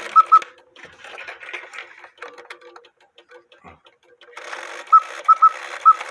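Count-wheel cuckoo quail clock running its strike: the quail bellows give short, high chirps in quick pairs over the whir of the movement's strike train, with a quiet pause midway and a run of chirps near the end.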